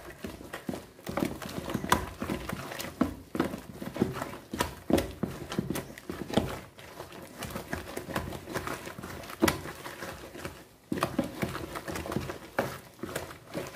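Wooden spoon stirring a thick, stiffening soap paste in a plastic bowl: irregular knocks and scrapes of the spoon against the bowl, a knock or two a second. The paste is setting hard as it is worked.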